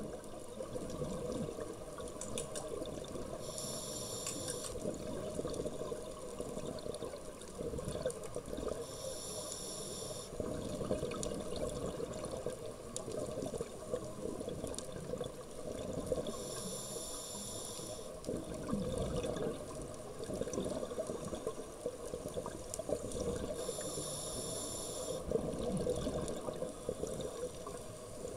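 Scuba regulator breathing underwater: four slow inhalations, each a hiss of about a second and a half, come roughly every six to seven seconds. Bubbling exhalations fill the time between them.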